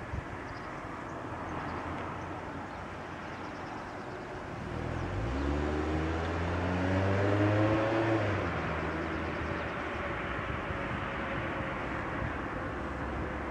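A vehicle speeding up, its motor note rising steadily in pitch and growing louder for about three seconds from near the middle, then easing back into a steady low hum over a constant rumble.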